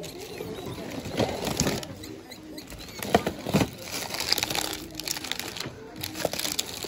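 Clear plastic bags crinkling and rustling as items are rummaged through by hand in a bin, with a few knocks from objects being shifted, two of them about three seconds in.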